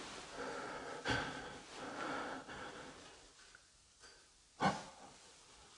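A person breathing audibly close to the microphone, fading after about three seconds. There is a short knock about a second in and a sharper, louder knock about four and a half seconds in.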